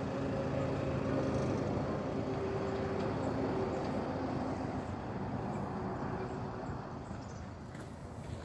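A 4x4 vehicle's engine running steadily, getting a little quieter near the end.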